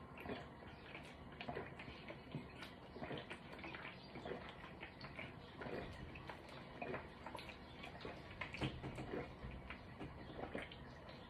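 A person gulping a drink down from a plastic bottle without stopping: faint, irregular swallows, one or two a second.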